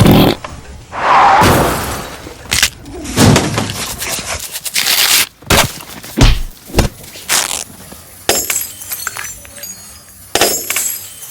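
A rapid string of dubbed-in crash and smash sound effects: about a dozen sudden impacts, thuds and breaking noises, with a longer crash about a second in.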